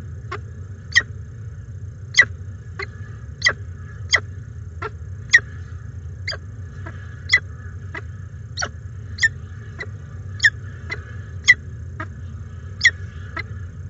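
Peregrine falcon chick cheeping while the adult feeds it, begging for food. The short, high chirps come about one to two a second, irregularly, over a steady low hum.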